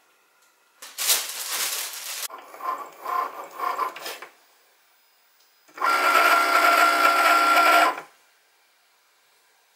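Cricut cutting machine's motors running in spells: a noisy whirr about a second in, then quicker pulsing whirs, then a steady high-pitched motor whine for about two seconds that stops short, as the machine works a mat of printed sticker sheets.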